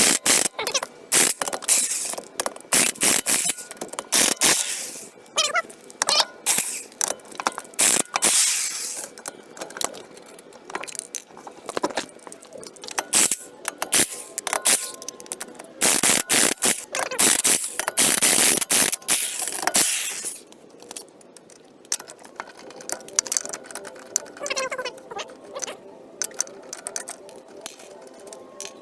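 Impact wrench loosening wheel lug nuts: several bursts of rapid hammering, the longest about 16 to 20 seconds in, with lighter clicks and clinks of the nuts and tools in between.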